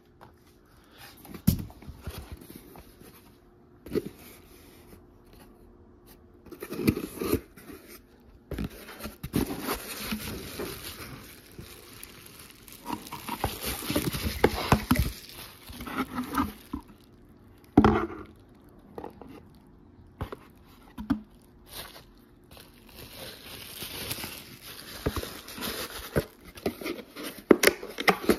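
Cardboard box and plastic-bagged parts being handled: irregular rustling, crinkling and scraping with scattered knocks, the loudest about eighteen seconds in and near the end.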